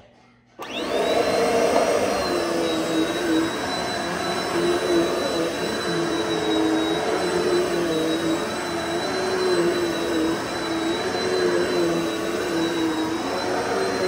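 A Dirt Devil Multi-Surface Total Pet+ upright vacuum is switched on about half a second in. Its motor spins up within a second to a steady high whine over rushing airflow, with a lower hum that wavers as the vacuum is pushed across a rug.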